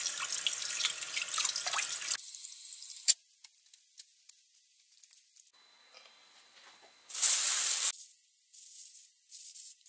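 Kitchen tap running into a stainless-steel sink, water splashing over pike pieces being rinsed by hand; it stops abruptly about two seconds in. Then a few faint clicks, and near the end a plastic bag rustled in one loud stretch and two shorter ones.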